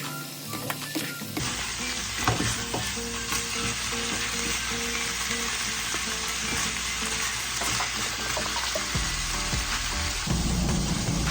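Spicy pork stir-fry sizzling loudly in a hot pan, the sizzle starting about a second and a half in, with a spatula stirring and knocking against the pan.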